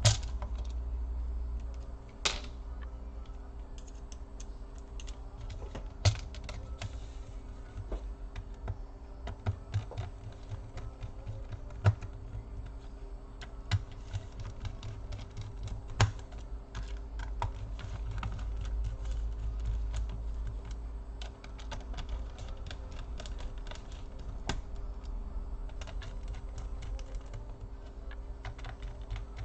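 Small irregular clicks and taps of a screwdriver, screws and plastic laptop casing being handled while screws are taken out and refitted in the wrong hole, over a low steady hum.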